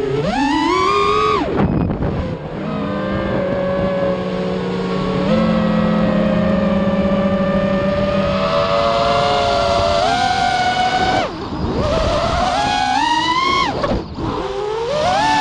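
FPV racing quadcopter's electric motors and propellers whining, the pitch rising and falling with the throttle, with short drops near 2, 11 and 14 seconds in before it climbs again. The propellers are beat-up.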